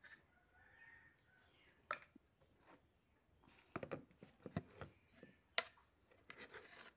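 Faint, scattered clicks and light taps of kitchen handling as ground spices are added to a steel bowl of raw chicken and onions, with a small cluster of taps a little past halfway and one sharper click near the end.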